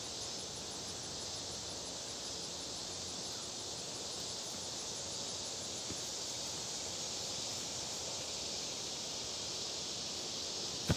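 Steady, high outdoor hiss of a grassy field in summer. A soccer ball is kicked with a faint thud about six seconds in, and a brief sharp knock comes at the very end.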